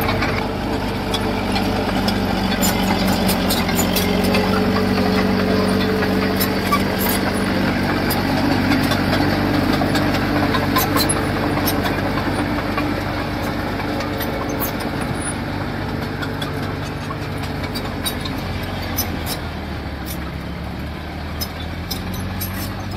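Diesel engine of heavy construction machinery running steadily, its pitch lifting slightly in the first few seconds and then settling, with scattered light clicks and knocks over it.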